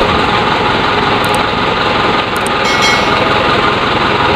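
A real dump truck's engine running steadily and loudly while the truck tips its raised bed.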